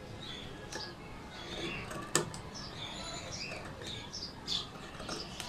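Scissors snipping through fabric: soft cutting rustle and blade clicks, with one sharper clack about two seconds in.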